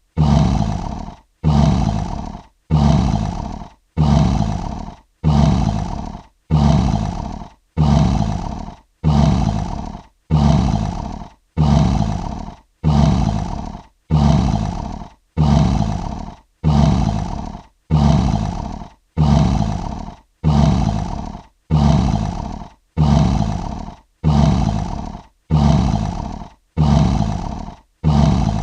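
A short lion roar repeated over and over about once a second, each one starting loud and fading away, with brief silences between: the same sound effect looped.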